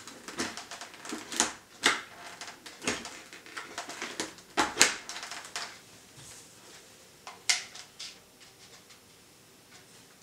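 Irregular plastic clicks and taps as a small plastic intercom mount is pressed, slid and repositioned on a motorcycle helmet's hard shell. The clicks are thickest in the first five seconds, come again a few times around seven and a half seconds, then die away.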